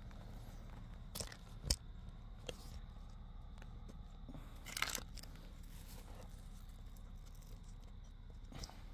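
Camping gear being picked up and handled: a few scattered knocks, the sharpest just under two seconds in, and a short crinkling rustle around five seconds in.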